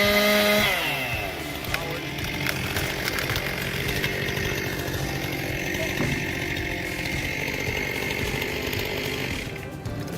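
Chainsaw running, its pitch falling over the first second, then a steady sawing sound that runs until near the end.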